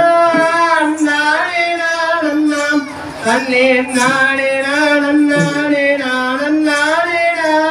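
A single voice singing the opening lines of a Tamil kummi folk song unaccompanied, in long held, slowly bending notes with a short pause for breath partway through.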